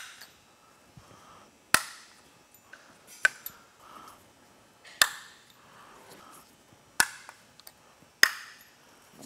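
Valve tappets and shims being taken out of a Polaris RZR 900 XP cylinder head, giving sharp metallic clinks, about five of them, one every second or two.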